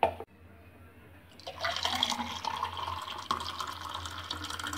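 A short burst of noise at the very start. From about a second and a half in, the blended watermelon milkshake is poured in a steady stream into a tall glass, a continuous splashing fill sound.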